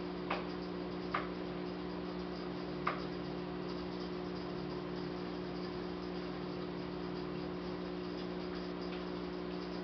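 Steady electrical hum over a soft even hiss, with three faint clicks in the first three seconds.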